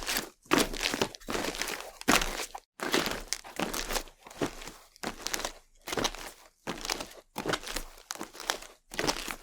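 Footsteps crunching on a loose, gritty surface at a steady walking pace, about a dozen steps, roughly one every 0.7 seconds.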